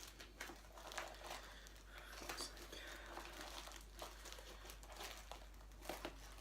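Faint crinkling and rustling of packaging being handled and torn open, with scattered small crackles.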